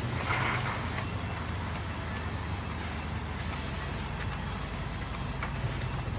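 Sawmill band saw running steadily with a low motor hum as a plank is fed through the blade, with a brief hiss about half a second in.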